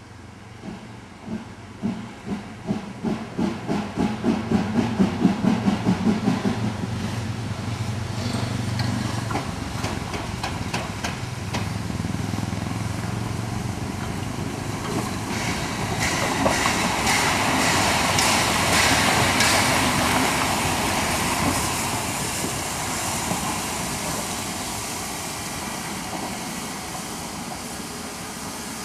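Harz narrow-gauge steam tank locomotive (class 99.72 2-10-2T) running light and drawing near: its exhaust beats come at about two to three a second and grow louder over the first several seconds, with clicks of wheels over rail joints. Then a long hiss of steam swells up about halfway through and slowly fades.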